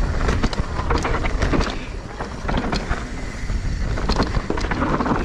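Wind buffeting the microphone over the tyre noise of a mountain bike rolling across rough ground, with frequent short rattling clicks from the bike.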